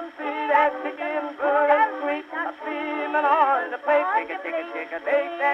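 Music from an early acoustic-era phonograph record of a vaudeville song, with wavering melody lines and a thin, narrow sound that has no deep bass and no top.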